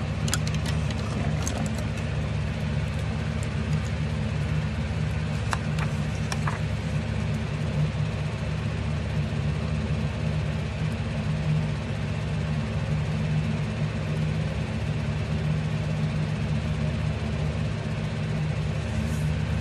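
Steady low machine hum, even and unchanging throughout. A few light clicks and paper rustles in the first seven seconds as stickers are handled.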